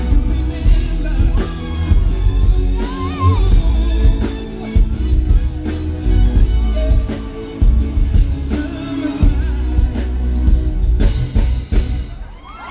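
Amplified pop song played live over a PA: singing over a steady drum beat, guitar and heavy bass. The music stops shortly before the end.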